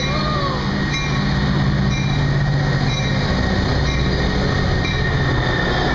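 Metra diesel locomotive passing close by, its engine running steadily and loudest in the first half, then bilevel passenger cars rolling past with wheels clicking over rail joints about once a second.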